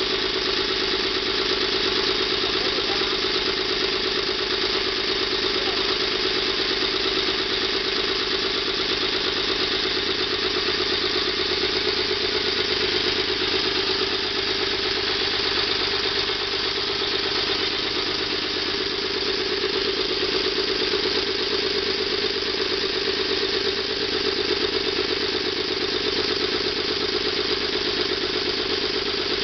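Small homemade steam engine running steadily, with a rapid, even beat over a constant hiss of escaping steam.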